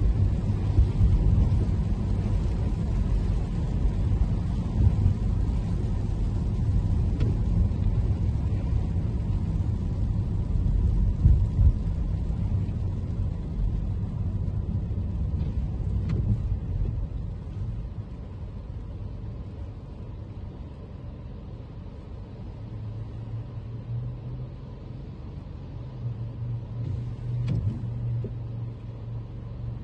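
Toyota Camry being driven on rain-wet city streets: a steady low rumble of road and tyre noise that drops to a quieter level about 17 seconds in, with a steadier low hum from about 23 seconds.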